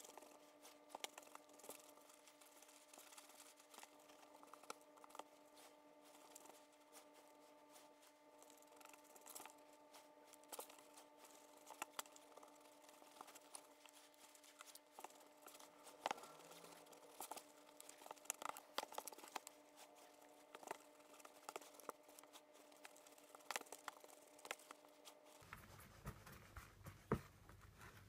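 Faint rustling and crinkling of damp shredded-paper and leaf worm bedding being picked through by hand on a plastic tray, with scattered soft ticks. A faint steady hum stops near the end.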